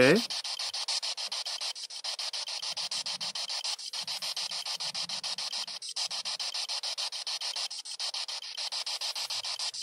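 P-SB7 spirit box, a frequency-sweep radio, stepping rapidly through stations: a steady rasping static chopped into quick, even pulses.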